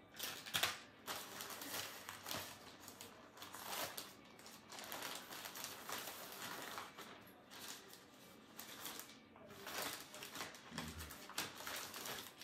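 Packaging rustling and crinkling as a package is handled and opened by hand, in irregular scratchy rustles.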